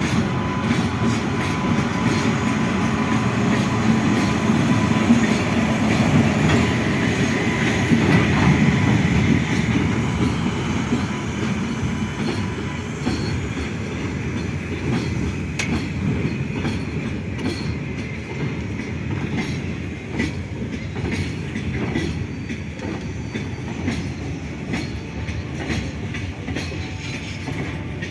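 A train passing over a level crossing: a steady rumble of the rolling train with repeated clattering clicks of wheels over rail joints. It is loudest in the first third, then slowly fades as the train moves on.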